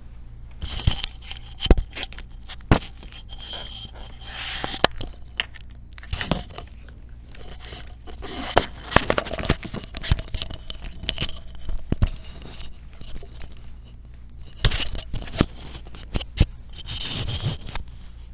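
Close microphone handling noise: irregular rustling and scraping broken by sharp clicks, as clothing and a clip-on microphone are touched. A low steady electrical hum runs underneath.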